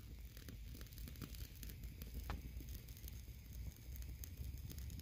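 Small wood fire crackling quietly, with scattered light pops and one sharper pop a little after two seconds in.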